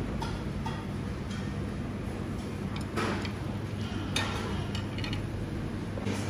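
Light, irregular clicks and taps of chopsticks and tableware against a steel hot pot and dishes, over a steady low hum.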